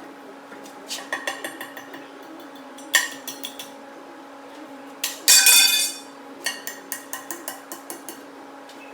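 Metal-on-metal clinks and taps on the steel work and tools, in scattered runs, with one sharp ringing strike about three seconds in and a louder clanking burst lasting most of a second a little past the middle. A steady low hum runs underneath.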